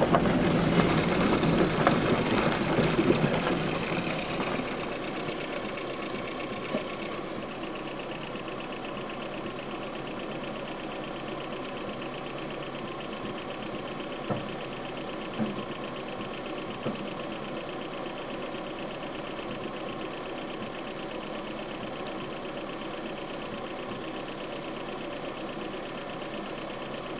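Vehicle engine idling steadily, heard from inside the car's cabin. A louder rush of noise from the car rolling on gravel fades out over the first few seconds.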